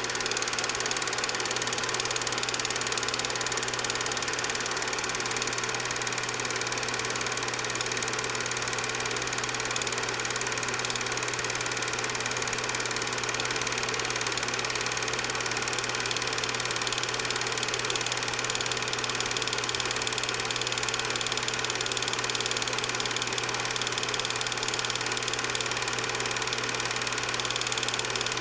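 8mm film projector running steadily: an even mechanical hum and whir from the motor and film mechanism, with no change across the picture's cuts.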